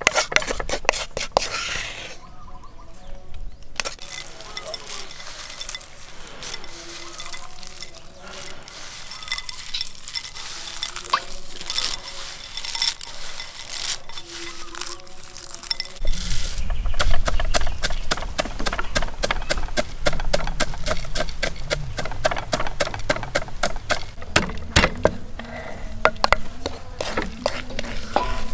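Cooking sounds: a utensil clinking and stirring against a pot, with many quick clicks and scrapes that grow denser, and a low rumble that starts about halfway through.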